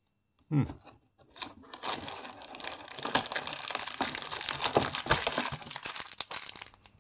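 Small plastic parts bag crinkling and rustling as it is handled and opened, with light clicks of small LEGO pieces, from about a second and a half in until near the end.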